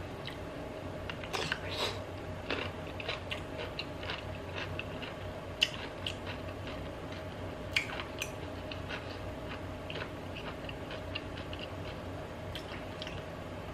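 A dill pickle being bitten and chewed close to the microphone: a run of wet crunches and mouth clicks, with a few sharper crunches about halfway through.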